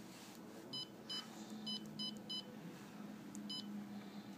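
Xerox ConnectKey copier's touchscreen giving a short, high key-press beep as each character of a user name and password is tapped on the on-screen keyboard. There are six beeps, irregularly spaced, the last one near the end.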